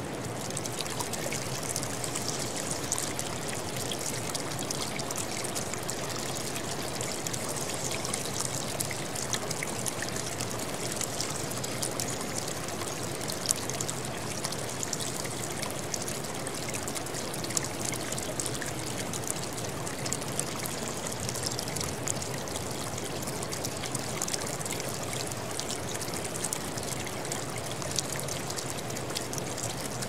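A stream running over rocks: a steady rush of water flecked with many small splashes and trickles.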